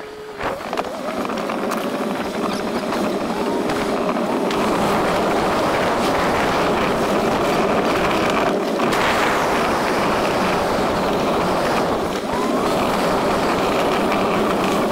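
Steady rushing noise of a vehicle on the move, building over the first second or so and then holding level.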